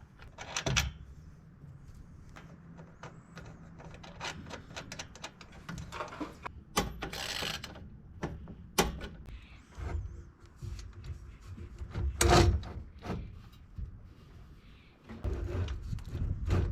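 Intermittent clicks, taps and knocks of tools and metal parts being handled during hands-on bracket work, with a short hissing rush about seven seconds in and a louder knock about twelve seconds in.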